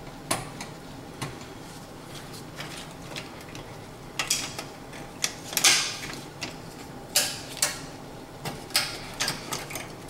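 Irregular small clinks and rustles of wires with metal ring terminals being handled by a gloved hand at an electric oven's terminal block.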